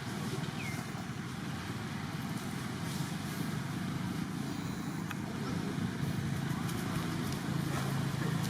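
Steady low engine rumble, like a running vehicle, with a few faint clicks.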